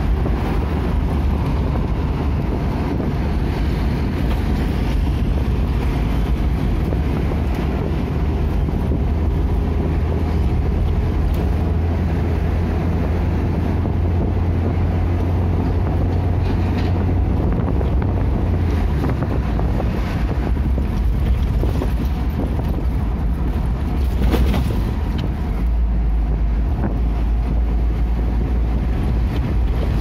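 Steady in-cabin drone of a vehicle's engine and tyres while driving, with wind noise. The low engine hum shifts lower in pitch twice.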